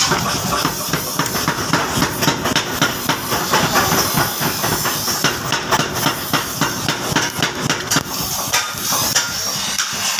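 Coal forge fire under forced air, a steady hiss, with many sharp, irregular knocks and clatter over it.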